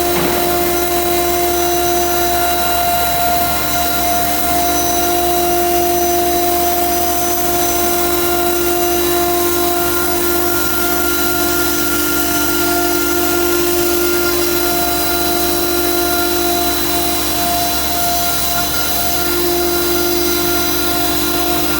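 CNC router running and cutting plywood: a steady high spindle whine over a continuous rushing cutting noise, the pitch shifting slightly near the end.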